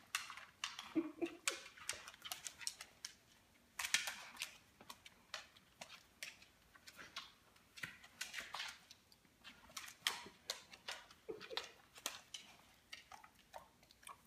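A Labrador's claws clicking and scuffing irregularly on a hardwood floor as it moves about, turns and pounces on a cherry tomato.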